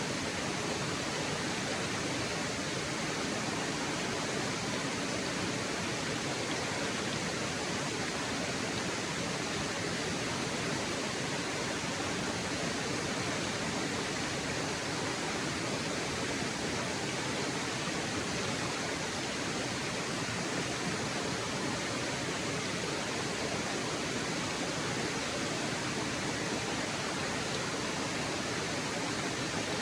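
A waterfall: a steady, even rush of falling water.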